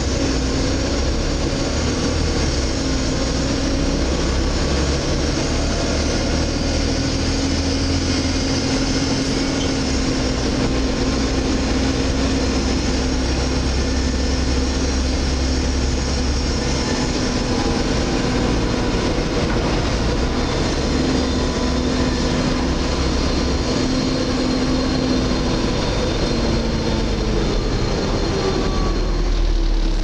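Volvo B7TL double-decker bus on the move, heard from the upper deck: a steady drone of engine and road noise with a low hum.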